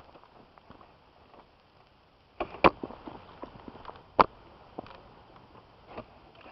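Footsteps and light rustling over rough ground, with two loud sharp cracks about a second and a half apart.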